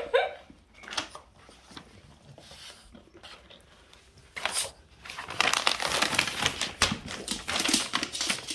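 Brown paper mailer bag crinkling and rustling as a Boston terrier paws at it and tugs it with its teeth. Mostly quiet for the first few seconds, then dense crackling rustle from about five seconds in.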